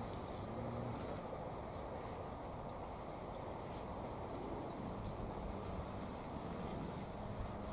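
Outdoor garden ambience: a steady low rumble, with a small bird's thin, high chirps coming in several short runs, about two, five and seven and a half seconds in.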